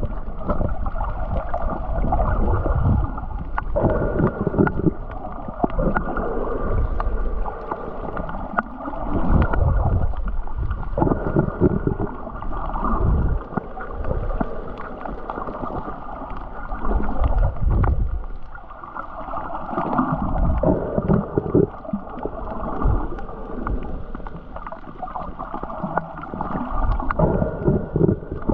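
Muffled underwater sound picked up through an action camera's housing: water sloshing and gurgling in uneven swells every second or so, with scattered faint clicks.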